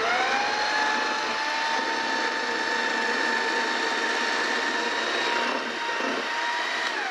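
Electric hand mixer running with its beaters in a bowl of creamed cookie batter: the motor's whine rises briefly as it comes up to speed, holds steady, and drops away as it is switched off at the end.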